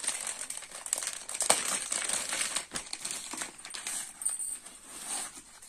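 Rustling and crinkling of fabric and plastic packaging as a kurti is picked up and handled, busiest in the first three seconds and dying down toward the end.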